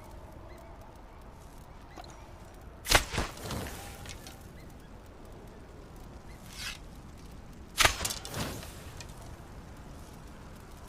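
A bow shot twice, about five seconds apart. Each shot is a sharp snap of the string, followed by a couple of quieter knocks.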